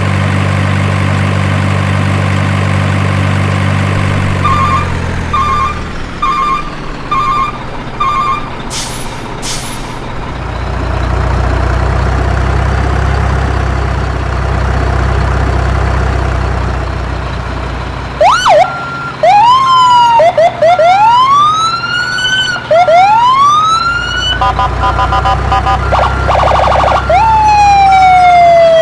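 Electronic toy-vehicle sound effects: a low engine hum, a run of short beeps, another engine rumble, then siren sounds, with rising whoops, rapid beeping and a long falling wail near the end.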